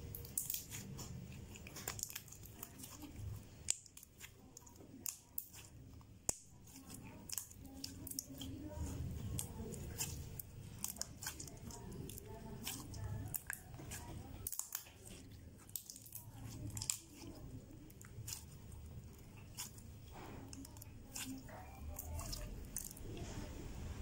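Clear blue glitter slime being squeezed, kneaded and stretched by hand, giving frequent irregular sticky clicks and pops.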